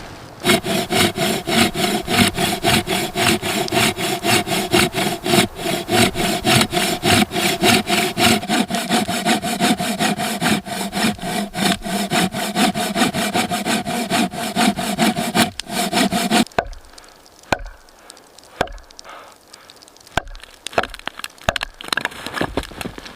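Hand saw cutting through wood in quick, steady back-and-forth strokes. It stops suddenly about two-thirds of the way in, and only a few light knocks follow.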